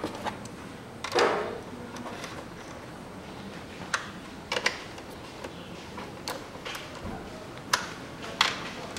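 Scattered sharp clicks and light knocks of hard plastic parts being handled in a car's engine bay, with a louder, slightly longer scrape-and-knock about a second in.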